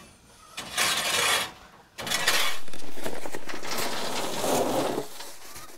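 Soiled chicken-coop litter and droppings scraped into a plastic tub, then poured from the tub into a metal tractor loader bucket: a short gritty scrape about a second in, then a rattling, sliding pour lasting about three seconds.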